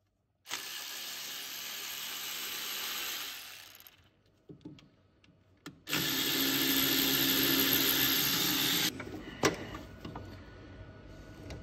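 Power ratchet running in two steady bursts of about three seconds each, spinning out the engine-mount bracket bolts. A sharp metallic click follows about a second after the second burst.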